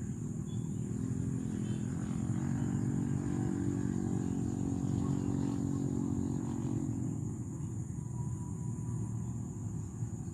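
A motor vehicle engine, likely passing by, that grows louder from about two seconds in and fades away after about seven seconds, over a steady low rumble.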